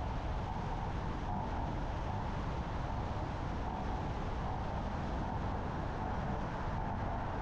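Car driving at a steady pace: continuous engine, tyre and road noise.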